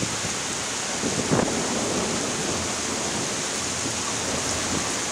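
Torrential thunderstorm rain pouring down with a steady hiss, briefly louder about a second and a half in.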